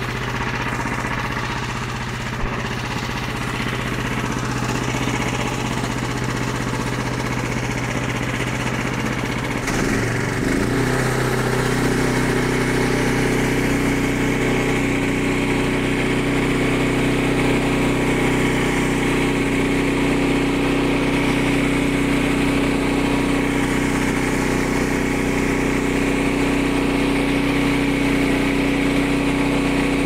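Frontier OS23 portable bandsaw mill's small gasoline engine idling, then throttled up about ten seconds in and running steadily at higher speed while the band blade cuts through a log.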